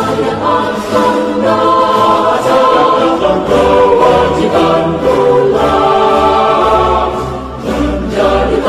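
Choir singing held chords with backing music, the chords changing every second or so over a low bass.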